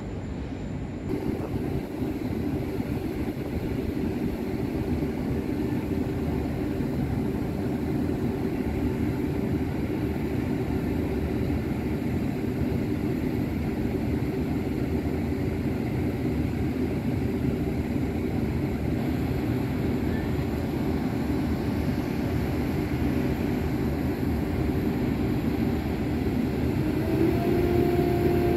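VR Class Sr3 (Siemens Vectron) electric locomotive standing at the platform, running with a steady mechanical hum. Near the end the hum steps up in pitch and a second, higher tone joins it.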